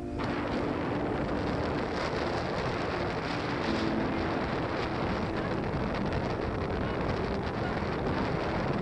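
Strong wind buffeting the microphone, a steady rushing noise with faint low tones showing through now and then.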